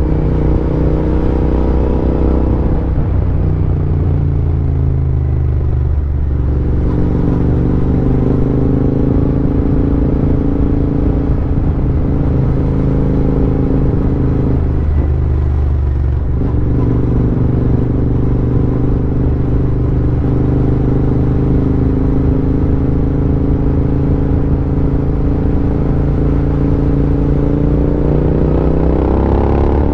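Royal Enfield Interceptor 650's parallel-twin engine running under way at modest speed. Its note dips and picks up again twice, about six and sixteen seconds in, and rises near the end as it accelerates.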